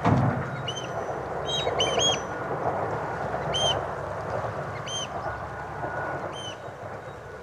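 Birds calling with short, high, arched piping notes, repeated irregularly several times, over a steady low rumble.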